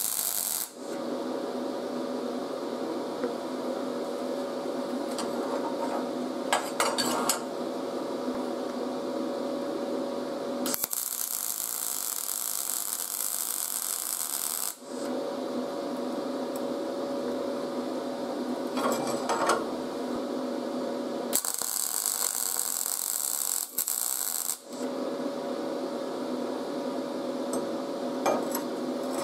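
MIG welding arc on steel, a steady crackling buzz through long runs of welding. It changes twice for a few seconds to a brighter, sharper hiss.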